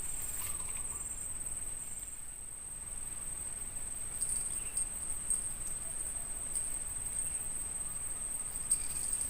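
Insects, crickets by the tags, keep up a steady high-pitched drone, with a few faint clicks over it.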